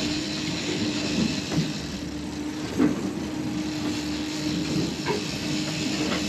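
Twin outboard motors of a catamaran fishing boat running steadily under way, a steady hum over the rush of wind and wake water. A few light knocks come through, the loudest about three seconds in.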